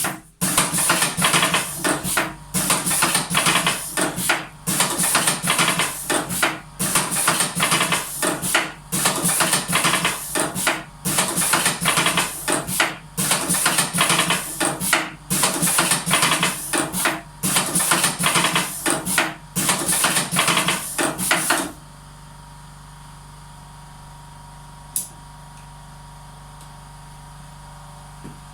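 Venus MK 42 cigarette rolling machine running with a dense metallic clatter that dips briefly about every two seconds, once per cycle. It stops suddenly about three-quarters of the way through, leaving a steady low hum and a single click.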